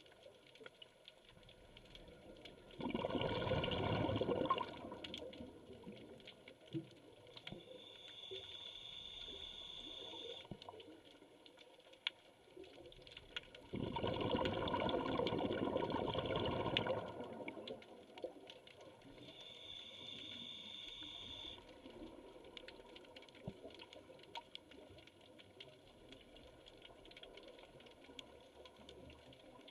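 Scuba diver breathing through a regulator: two long rushes of exhaled bubbles, about three seconds in and again about fourteen seconds in, with quieter hissing inhales through the demand valve between them.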